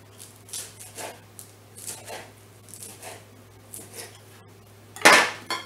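Knife slicing romaine lettuce on a cutting board: crisp cuts about two a second, with one much louder stroke about five seconds in.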